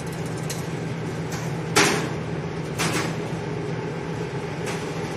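Steady fan hum of a laminar flow clean bench, with a few short scraping knocks from glass spawn bottles being handled, the loudest about two seconds in and another a second later.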